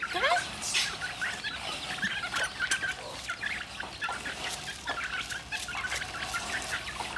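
A flock of hens with chicks clucking and cheeping, many short calls overlapping in a steady chatter.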